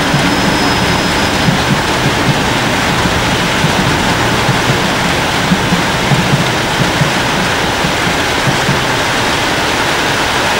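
Heavy rain pouring down, a steady loud hiss, with the low rumble of a pair of Class 66 diesel locomotives moving slowly past underneath it.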